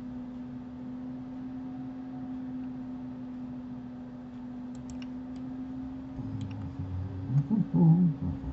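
Computer mouse and keyboard clicks, a few short sharp ones about halfway through and a couple more near the end, over a steady low electrical hum.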